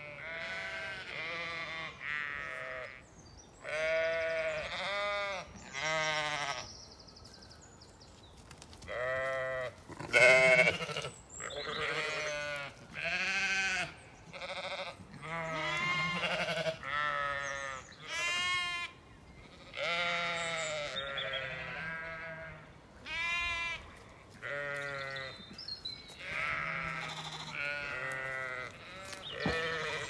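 A Zwartbles lamb bleating over and over, about two dozen quavering calls of half a second to a second each, with short pauses between them.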